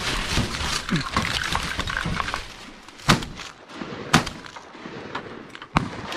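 Two shotgun shots about a second apart at an incoming duck, with a smaller sharp knock near the end.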